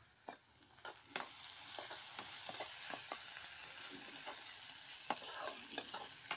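Chopped leafy greens and potato frying in oil in a kadai, sizzling steadily from about a second in, while a steel spoon stirs them, clinking and scraping against the pan.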